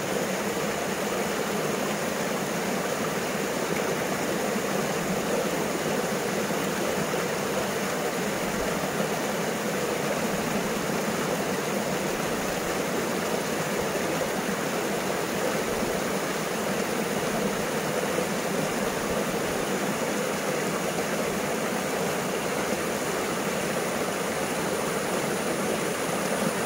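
Flowing river water, a steady even rush.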